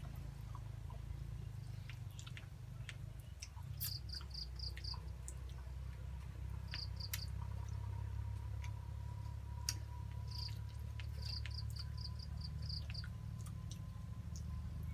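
An insect chirping in short trains of rapid high pulses, four to six at a time, repeating every few seconds over a steady low rumble, with scattered small clicks.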